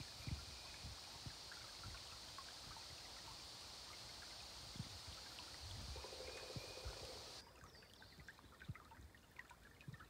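Faint trickling of a shallow woodland creek, with soft low thumps on the microphone. The steady hiss under it drops away abruptly about seven seconds in.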